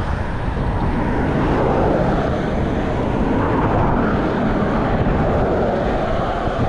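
Cars passing close by on the road: tyre and engine noise swells and fades as a car goes past, over a constant low rumble of wind on the microphone of a moving bicycle.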